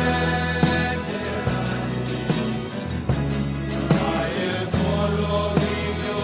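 Choir and congregation singing a hymn to acoustic guitars and keyboard, over deep held bass notes and a steady beat.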